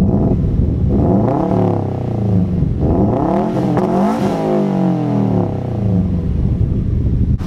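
Subaru WRX STI's turbocharged flat-four engine, heard at the quad exhaust tips with the exhaust as yet unmodified and the resonator still fitted. It is revved up and back down twice from idle, the second rev lasting longer.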